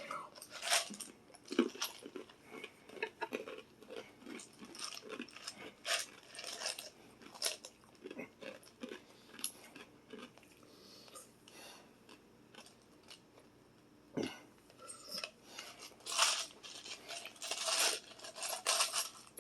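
Eating close to the microphone: irregular chewing and crunching mixed with clicks and rattles of cutlery and takeout containers.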